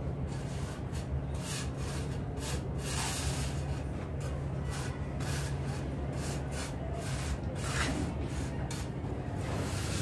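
Steel trowel scraping and smoothing a dry sand-cement mortar bed, in repeated short, irregular gritty strokes, over a steady low hum.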